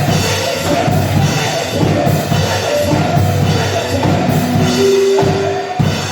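Live band music with a drum kit playing a steady beat, breaking off about five seconds in and dying away.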